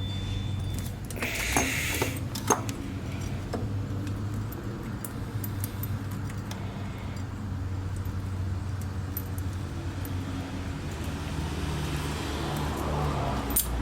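Metal hand tools clinking and jingling against the intake-manifold bolt, in a cluster of clicks about two seconds in and a few scattered ones after, over a steady low hum.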